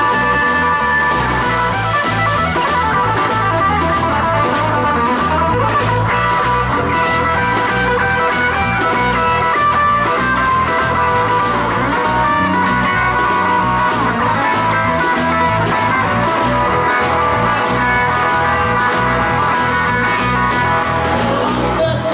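Live blues-rock trio of electric guitar, electric bass and drum kit playing an instrumental passage with a steady beat and no vocals.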